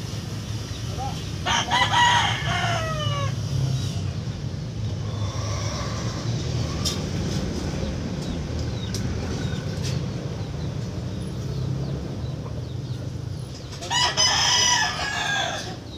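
A rooster crowing twice, each crow about two seconds long, one near the start and one near the end, over a steady low hum.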